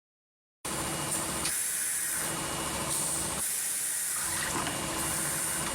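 Automatic spin welding machine for plastic filter housings running, with a steady hiss like compressed air and a low hum. The hum drops away twice, about a second and a half in and again about three and a half seconds in, each time for under a second.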